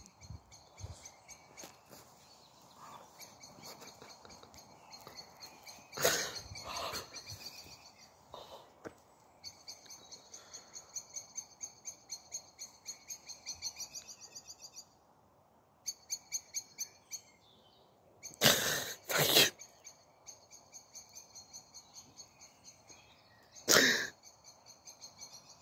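A man crying, with a few loud, sharp sobbing breaths spread through, while a small bird sings a long run of high repeated chirps, several a second.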